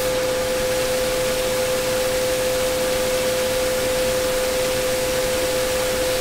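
Agricultural mist irrigation hose spraying water under pressure: a steady hiss, with a steady humming tone running underneath.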